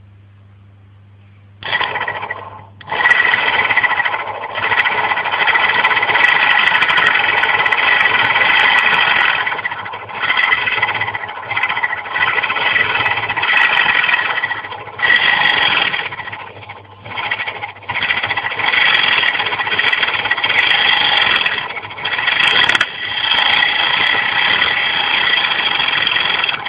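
Homemade simple electric motor running: its spinning rotor makes a loud rattling buzz that starts a couple of seconds in, cuts out briefly several times and picks up again.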